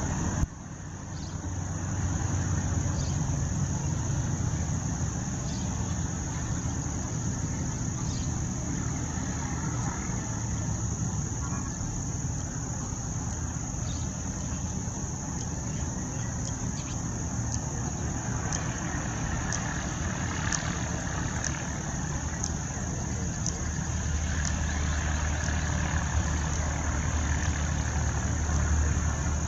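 Steady outdoor background noise: a low rumble with a constant high-pitched hiss or drone over it, and a few faint ticks.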